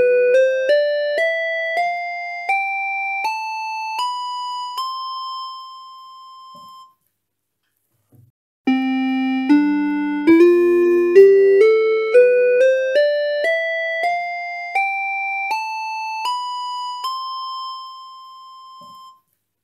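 Keyboard playing a rising scale note by note, climbing about two octaves, with the top note held and dying away. After a short pause the same rising scale is played again.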